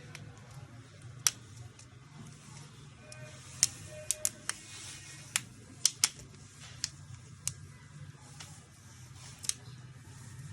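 Sharp, irregular clicks and taps of small tools and plastic parts as a mobile phone is opened up for repair, about a dozen in all and bunched around the middle, over a low steady hum.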